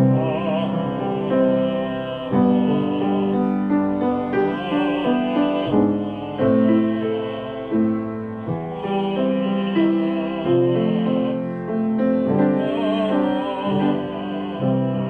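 Grand piano accompanying a singing voice with vibrato through a vocal warm-up exercise. The exercise is an extension warm-up whose leap widens to a sixth, a seventh, an octave and then a ninth, moving up one note each time.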